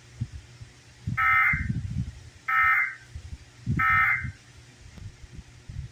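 Emergency Alert System digital data bursts (SAME code): three raspy, buzzing electronic bursts, each a little under a second long, sent about a second and a half apart.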